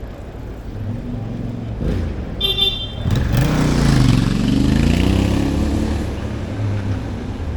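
Street traffic with a short horn toot about two and a half seconds in, then a motor vehicle passing close, its engine pitch rising and falling as it goes by.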